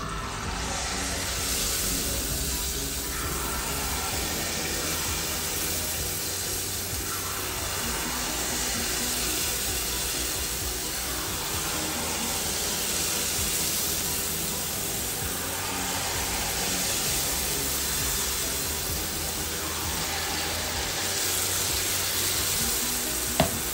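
Jalebi batter frying in hot oil: a steady sizzle as spirals of batter are piped from a squeeze bottle into the pan. There is a single sharp click near the end.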